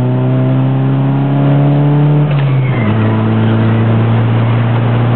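Nissan 200SX S13 engine heard from inside the cabin, pulling under acceleration with its pitch climbing slowly. About two and a half seconds in the pitch drops sharply at a gear change, then holds steady.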